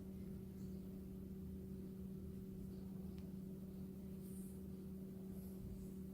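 A steady low hum holding one pitch and its octave, with a faint click about three seconds in.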